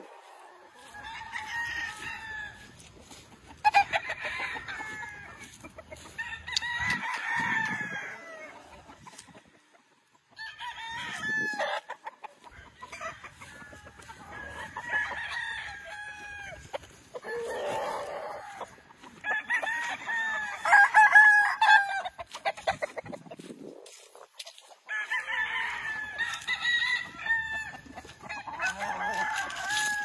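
Several gamefowl roosters crowing over and over around the yard, one call after another and sometimes overlapping, each crow lasting a second or two.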